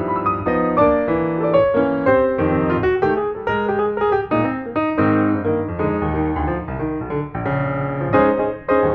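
Background piano music: a solo piano playing a steady stream of notes.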